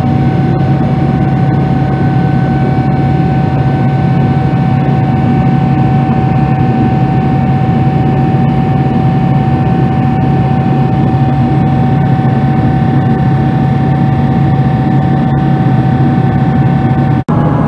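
Jet airliner cabin noise during climb-out: steady engine and airflow noise with a steady high whine over it. It cuts out for an instant near the end.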